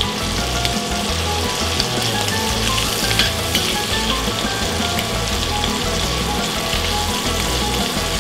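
Shrimp frying over high heat in butter and oil in a skillet: a steady, crackling sizzle.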